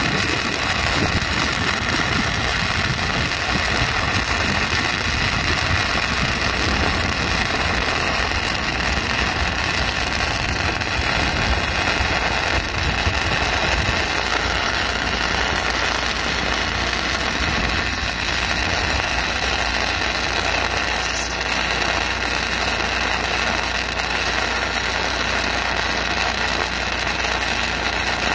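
Self-shielded flux-cored arc welding with .068 NR-212 wire from an LN25X feeder, making a vertical-up pass on 6 mm plate. The arc runs steadily without a break.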